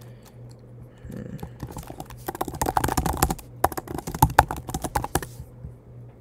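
Typing on a computer keyboard: a quick, dense run of key clicks lasting about three seconds in the middle, with a few single clicks before it.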